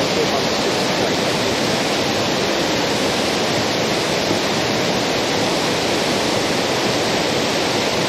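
Water pouring over a small dam spillway and crashing onto rocks below, a steady rushing.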